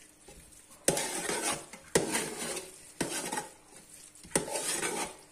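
Metal spoon stirring and scraping rice in a metal pot: a sharp clink of spoon on pot about once a second, four in all, each followed by a scrape through the rice.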